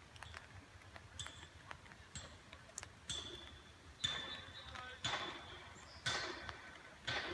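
Footsteps crunching on railway track ballast, about one step a second and getting louder partway through, with the loose stones clinking under each step.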